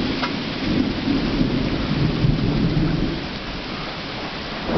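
Rolling thunder over steady rain. The rumble swells about a second in, eases off after about three seconds and rises again at the very end.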